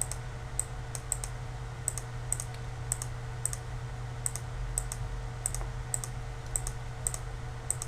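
Light, irregular clicking at a computer, about two to three clicks a second, as items are picked from on-screen lists. A steady low electrical hum runs underneath.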